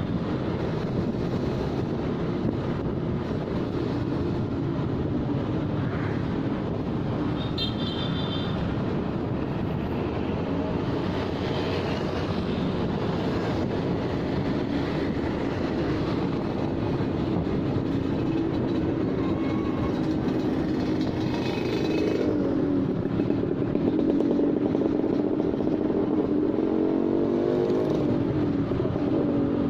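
Motorcycle engine running while riding through town traffic, with steady wind and road noise; near the end the engine note rises as the bike speeds up.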